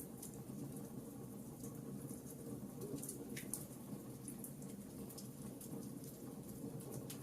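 Wood fire burning in a fireplace: a steady low rumble of flames with scattered sharp crackles and small pops at irregular intervals.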